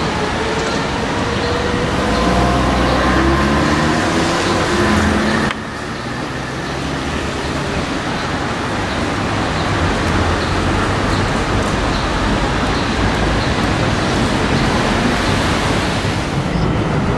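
Steady street traffic noise where trams run, with a vehicle's motor whine falling in pitch over the first five seconds. The sound drops suddenly about five and a half seconds in, then goes on as an even rumble.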